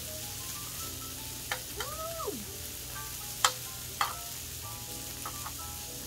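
Slices of pork belly sizzling steadily on a grill pan over a tabletop gas burner, with a few sharp clicks of metal tongs against the pan, the loudest about three and a half seconds in.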